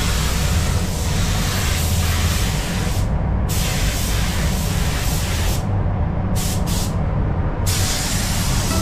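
Pneumatic paint spray gun hissing as it sprays a car body, with the hiss stopping for a moment several times, over a steady low rumble.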